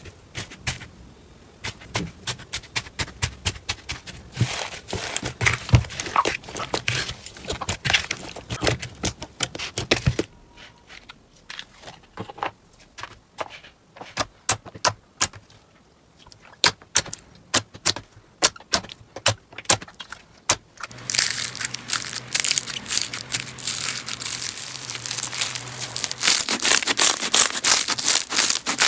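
Slime being squeezed and pressed by hand, giving rapid runs of sticky pops and crackles. The sound changes twice, about a third and two thirds of the way through, and the last stretch is a denser, louder crackling.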